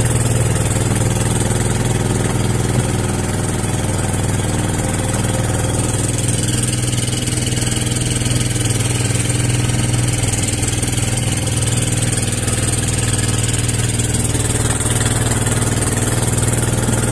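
Small boat engine running steadily at a low, even speed.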